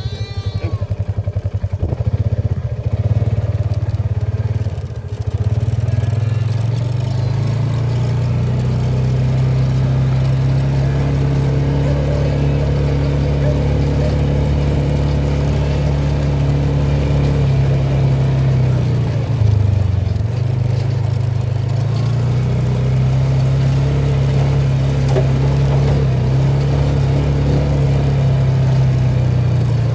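Ranger farm vehicle's engine running steadily while driving, its note dipping briefly about two-thirds of the way through, then picking up again.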